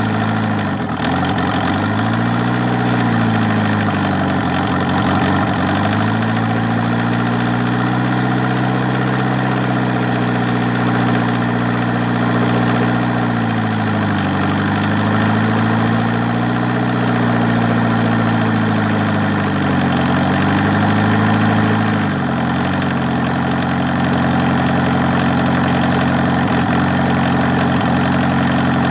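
1.6-litre VW diesel engine swapped into a 1988 Suzuki Samurai, running shortly after a cold start. Its speed swells up and falls back several times, then settles to a steady idle a little over 20 seconds in.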